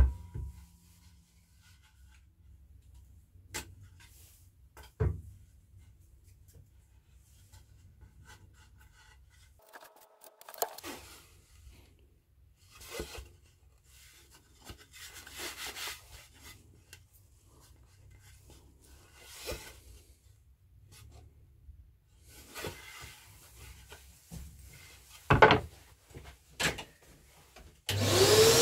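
A wooden board being handled on a workbench, with scattered knocks and scraping rubs against the drill stand and bench. Near the end, a shop vacuum's motor starts up, its whine rising and then holding steady.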